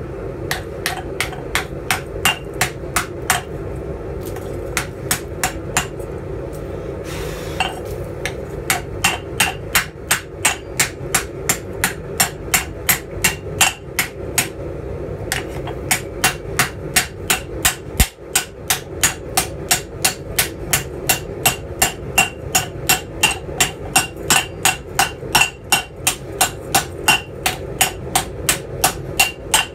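Rounding hammer striking a red-hot steel disc in a steel dishing bowl, a steady run of ringing metal-on-metal blows at about two to three a second with a few short pauses, sinking the disc into a ladle bowl.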